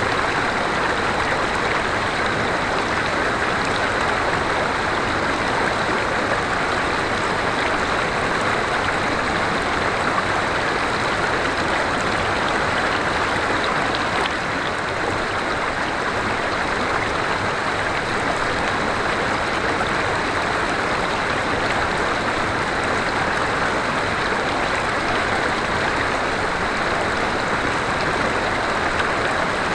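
River water flowing steadily, a continuous even rush of a forest stream.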